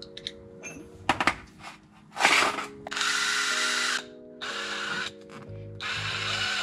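DeWalt cordless drill with a greased pilot bit boring a pilot hole into a Mazda Miata's oil pan for a turbo oil-return fitting. It runs in several short bursts, the longest about a second, with brief stops between them.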